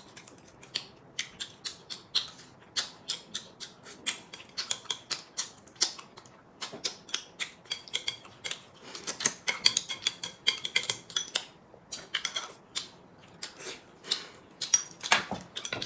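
Close-miked eating sounds: chopsticks clicking against porcelain rice bowls and plates, with chewing and mouth smacks. The clicks come quick and irregular.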